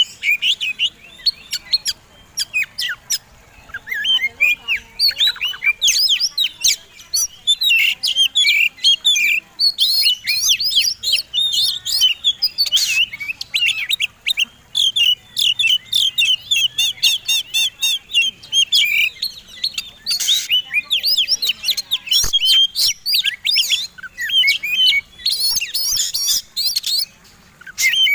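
Oriental magpie-robins (kacer) singing the fast, combative 'fighting' song: a dense, continuous stream of quick high chirps, whistles and trills.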